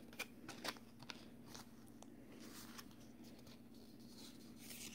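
Faint handling noise of trading cards being flipped through: a few soft clicks and rustles over a low steady hum.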